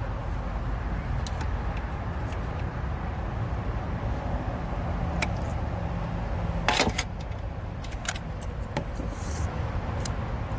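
Sharp metallic clicks and knocks from a 2013 Honda Accord's throttle plate being forced open by hand in its carbon-fouled throttle body, loudest in a cluster about seven seconds in; the plate was stuck, the cause of the car stalling after starting. A steady low hum underlies them.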